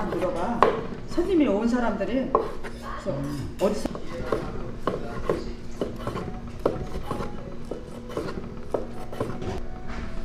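A kitchen knife slicing through cooked pork and knocking on a wooden cutting board, a steady run of sharp cuts about two a second that begins about two seconds in.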